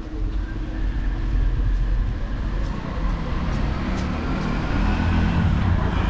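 Street traffic heard from a moving bicycle: a motor vehicle's engine runs close by and grows louder in the second half, over steady low road noise.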